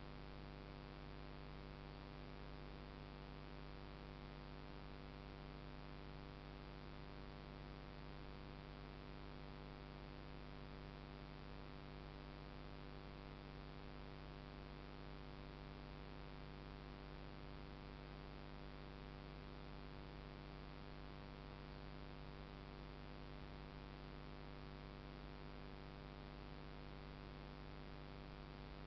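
Faint, steady electrical hum with hiss that never changes. It is the recording's own noise, with no other sound.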